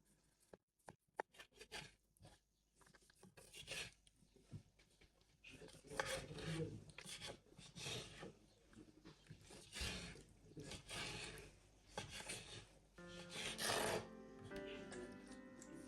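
A few light clicks, then repeated rasping, scraping strokes about once a second, like something being rubbed or grated by hand. Soft background music comes in near the end.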